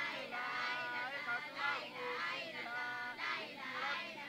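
Several voices chanting together in a sing-song melody, with held and gliding notes: a devotional recitation over prayer beads.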